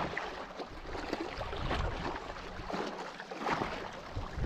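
Wind buffeting the microphone, with small waves lapping at a shallow rocky shoreline.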